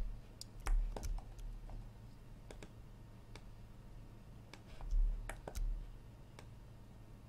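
Scattered clicks of a computer mouse and keyboard at a desk, with two louder clusters of clicks and dull thumps about a second in and about five seconds in, over a low steady hum.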